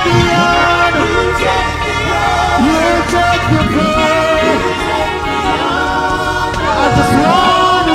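Gospel worship music: voices singing a gliding melody over a steady low accompaniment.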